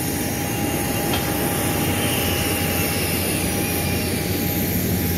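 Steady jet airliner noise on an airport apron: an even rumbling rush with a thin, steady whine running through it.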